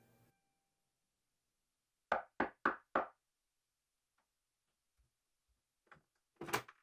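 Four quick, evenly spaced knocks of a fist on a panelled door, then a few faint taps and a short clatter near the end.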